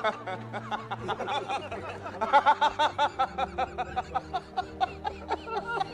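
Men laughing hard: a quieter chuckle at first, then from about two seconds in a long run of rapid ha-ha-ha bursts.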